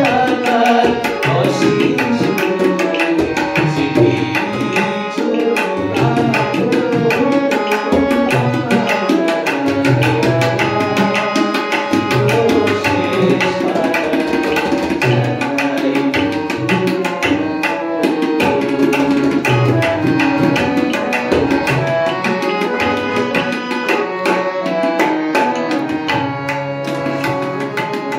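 Harmonium and tabla playing a Bengali song together: sustained reed chords over a steady tabla rhythm, with a man singing.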